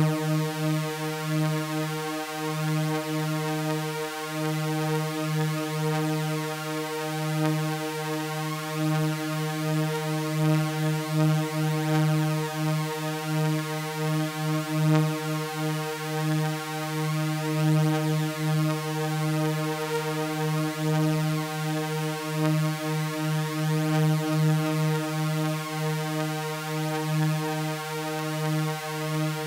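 Synthesizer drone of layered sawtooth waves: one steady, sustained low tone with many overtones, slowly wavering in loudness, with no change in pitch.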